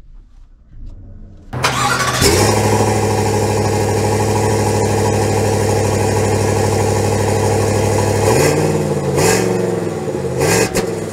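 Chevrolet Silverado 1500's 5.3-litre V8 starting up, catching about two seconds in and settling into a steady idle, then revved up and back down twice near the end, heard from outside beside the truck.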